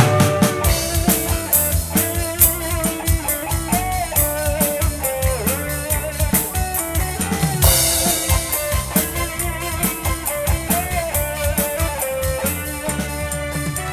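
A live band playing an instrumental passage: a drum kit keeping a busy, steady beat under electric guitar and keyboard, with a lead melody that bends in pitch.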